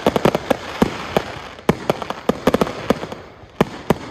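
Aerial fireworks going off: rapid, irregular bangs and crackles over a continuous hiss. They thin out about three seconds in, then a few more sharp bangs follow.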